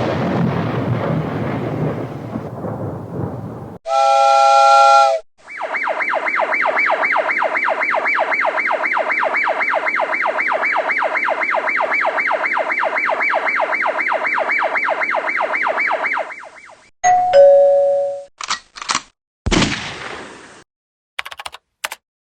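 A string of separate sound effects: a noisy rumble, a short ringing chime, a fast, evenly pulsing electronic alarm tone lasting about eleven seconds, then brief tones, clicks and a whoosh near the end.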